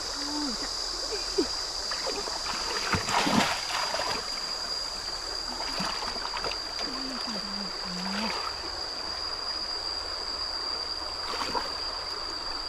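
Flowing stream water running steadily, with splashing as hands grope through shallow muddy water, heaviest about three seconds in. A thin, steady high-pitched whine sits over it.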